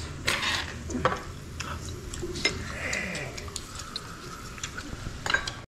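Scattered light clinks and clicks of glassware, dishes and metal utensils on a restaurant table, with small soju glasses touched together in a toast near the start, over a low background murmur.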